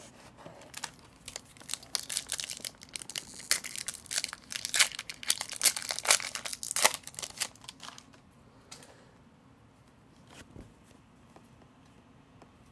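Foil wrapper of an Upper Deck hockey card pack crinkling and tearing as it is ripped open by hand, with about six seconds of dense crackling. A few light clicks follow as the cards are handled.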